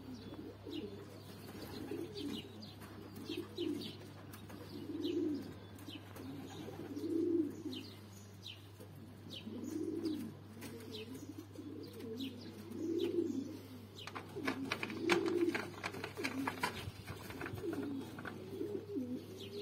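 Domestic pigeons cooing over and over, low rolling coos every second or two, with short high chirps of small birds scattered among them.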